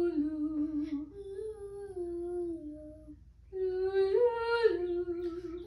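Short wordless melodic phrases sung in turn by a woman and a young girl, the girl echoing each pattern back by ear in a pitch-matching exercise. Each phrase steps between a few held notes, with a brief pause about three seconds in.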